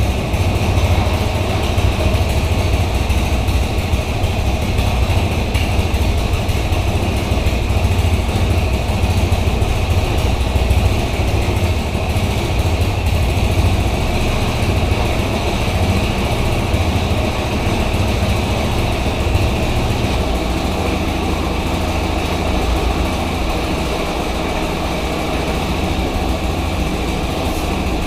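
Restored air compressor running steadily, a continuous mechanical hum with a strong low drone; the low drone eases a little about twenty seconds in.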